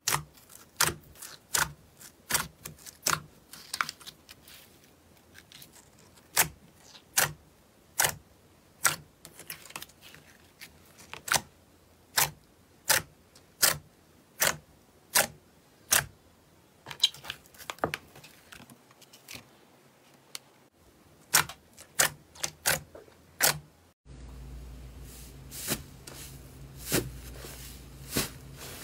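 Slime being pressed and worked by hand, giving sharp popping clicks, about one or two a second. Near the end a steady low hum comes in under the pops.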